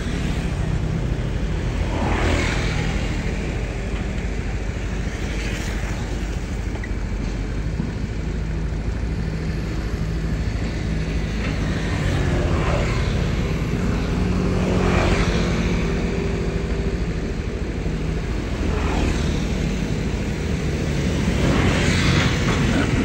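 Long-reach hydraulic excavators' diesel engines running steadily while dredging mud. A brief swishing noise comes and goes every few seconds over the drone.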